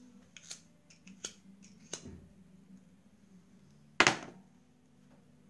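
A few light clicks, then one sharp, louder knock about four seconds in, in a small room.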